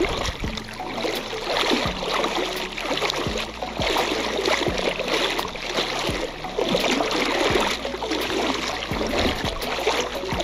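Sea water sloshing and splashing around a person wading through it, in irregular surges.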